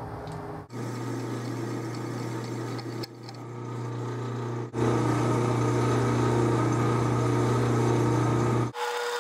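Metal lathe running steadily with a low motor hum and gear whine while a drill bit bores into the end of a spinning hardened steel bolt. The sound breaks off abruptly a few times and is louder over the second half.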